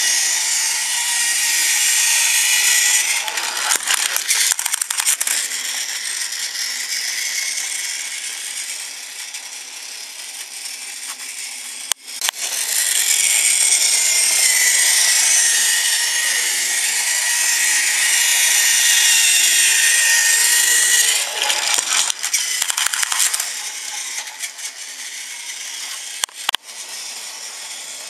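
Tomy battery-powered Thomas toy train's small electric motor and gearbox whining steadily as it runs on plastic track, with stretches of clicking and rattling twice along the way.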